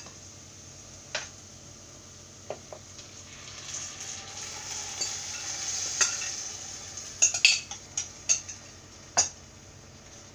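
Curd poured from a bowl into a pot of hot oil and fried onions, with a hiss of sizzling that swells for a few seconds. Then a wooden spatula knocks sharply against the bowl and pot several times as the curd is scraped in and stirred.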